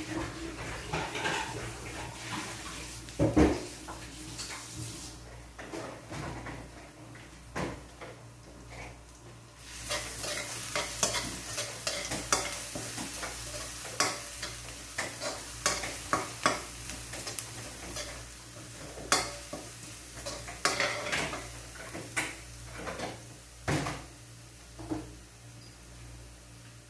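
Minced garlic sizzling in hot oil in a metal wok, with a spatula scraping and knocking against the pan as the garlic is stirred. The sizzle grows louder about ten seconds in.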